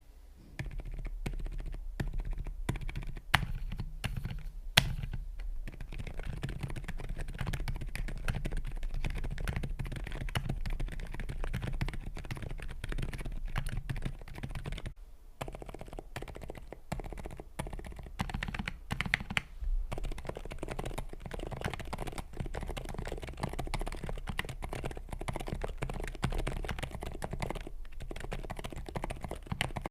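Typing on a mechanical keyboard: a fast, irregular stream of key clacks, with a few louder single strokes about three and five seconds in and a short pause about halfway through.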